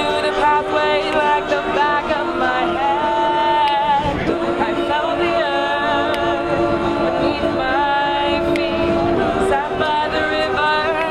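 Mixed high-school jazz choir singing a cappella in several-part harmony, with long held chords in the middle.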